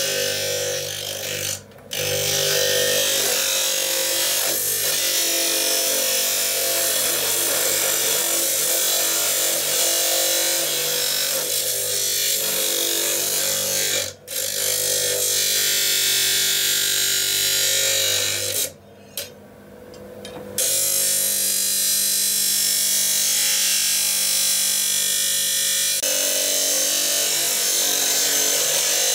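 Abrasive cut-off wheel (a vulcanite disc) running and cutting through a steel knife blank: a steady motor hum under a dense grinding hiss. The sound dips briefly three times: about two seconds in, around fourteen seconds, and for a second and a half around nineteen seconds.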